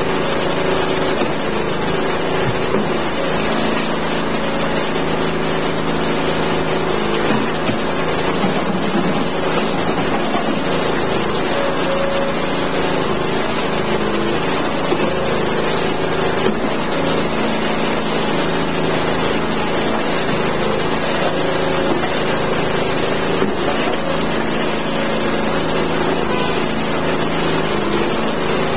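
A twin-block compressed earth block press running, its motor giving a steady, unbroken drone with several held tones.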